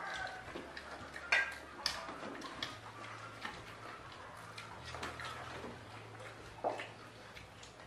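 Scattered small clicks and taps of a meal eaten by hand from ceramic plates: fingers and food against the plates and the odd light clink, with a few sharper taps. A faint low hum runs underneath, and a rooster's crow trails off right at the start.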